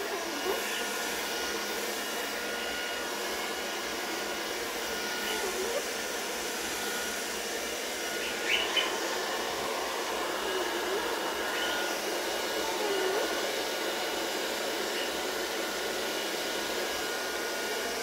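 Electric hair dryer blowing a steady stream of air on a wet cockatoo's feathers. Two brief sharp sounds come about halfway through.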